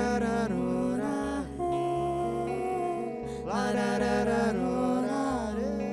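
Small acoustic-pop band playing live: guitars and electric bass keep a soft, steady accompaniment, with two wordless melodic phrases over them, the second starting about halfway through.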